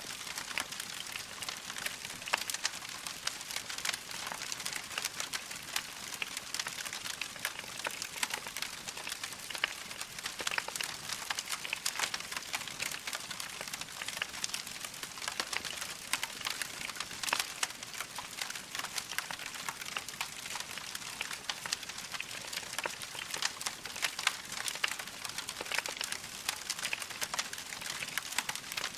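Wood fire crackling steadily, with a constant hiss and many small, irregular pops and snaps.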